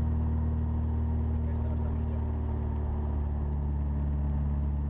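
Abarth hillclimb car's engine running steadily at low revs, heard from inside the cabin, with an even low drone and no revving.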